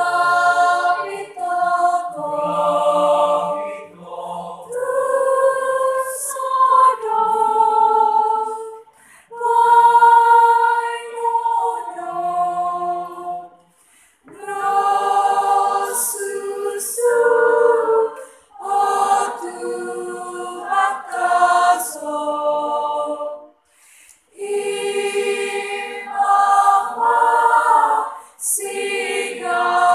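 Small choir of girls' and young women's voices singing unaccompanied. The sung phrases are broken by short pauses for breath.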